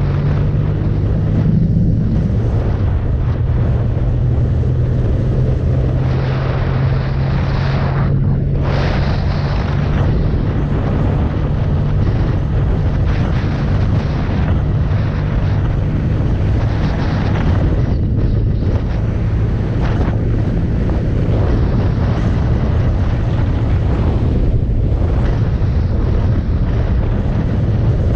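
1977 BMW R60/7's air-cooled flat-twin engine running under way at a steady speed, its revs rising briefly about two seconds in, with heavy wind noise on the microphone.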